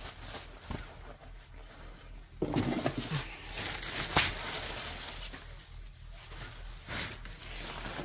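Nylon backpack rain cover rustling and crinkling as it is handled, with a few sharp clicks. A short low pitched sound comes about two and a half seconds in.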